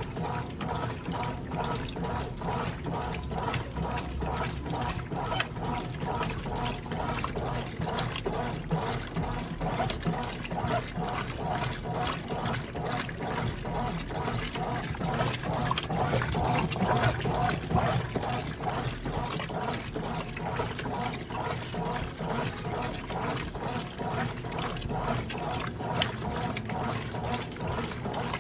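Brastemp Clean washing machine running its wash cycle, with water sloshing and churning inside the tub in a steady, evenly repeating rhythm.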